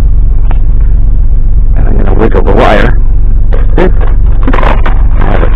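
A loud, steady low rumble, with irregular bursts of broader noise over it from about two seconds in.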